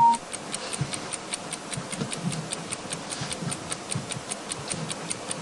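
Fast, even clock ticking, about five ticks a second, a sound effect laid under a sped-up on-screen timer to mark a long wait for an answer. A steady beep cuts off right at the start.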